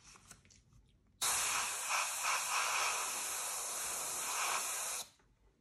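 Gravity-feed airbrush spraying paint along a post-it note mask: one steady hiss of about four seconds that starts sharply about a second in and cuts off near the end.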